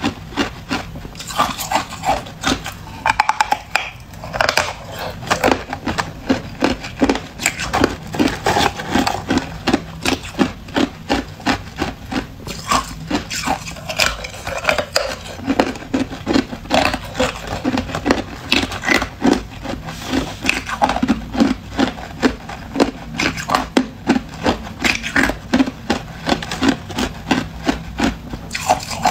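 Hard clear ice being bitten and chewed: a continuous run of sharp crunches, about two or three a second.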